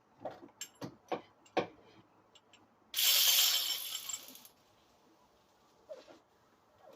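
Metal clinks and sharp clicks of a socket and tools working on the engine bracket bolts. About three seconds in comes a loud rushing noise lasting about a second and a half, which then fades.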